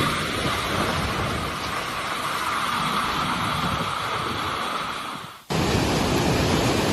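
Typhoon wind and rain, a steady rushing noise with wind buffeting the microphone; it breaks off abruptly about five and a half seconds in and starts again straight away.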